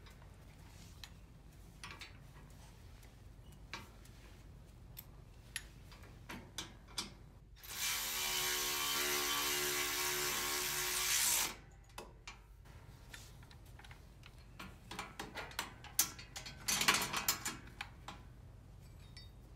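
Cordless ratchet driver's motor running steadily for about four seconds, starting a little under halfway in, as it drives a bolt on the pedal mount. Before and after it come scattered light clicks and clinks of metal parts being handled.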